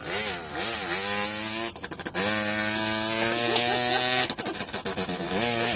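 A boy imitating a small 50 cc Zanella moped engine with his voice: wavering revs settle into a steady held note, broken by a rapid sputtering flutter about two seconds in and again about four to five seconds in.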